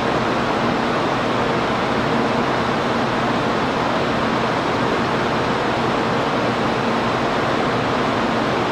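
Freight train rolling steadily past: an even rushing noise with a faint steady hum underneath.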